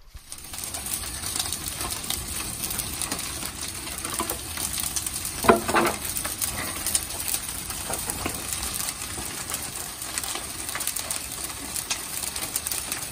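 Fire in a wood-fired brick kiln crackling and hissing steadily as it is stoked through its ports with long poles, with one brief louder sound a little before halfway.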